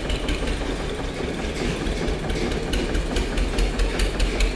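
A steady low mechanical drone with many short scraping ticks over it, as a brush works cement waterproofing slurry across a concrete slab.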